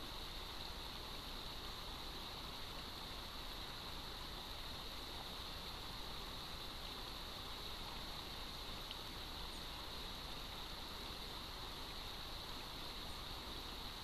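Steady rush of a shallow river flowing over stones, heard through a trail camera's small microphone with a constant high hiss.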